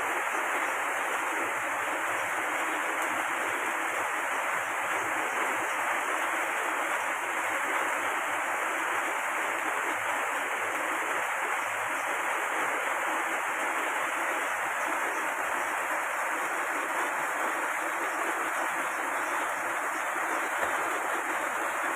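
Heavy rain falling steadily, an even hiss that holds at one level throughout.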